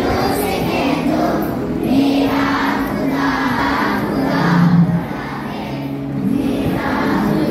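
Group of voices singing a devotional prayer together in unison, in slow phrases with long held notes.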